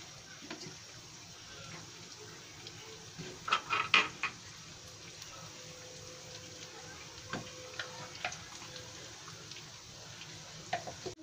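Vegetable pakoras deep-frying in hot oil in a karahi: a steady sizzle and bubbling, with a few sharp clicks and scrapes of a metal slotted spoon against the pan, loudest about four seconds in.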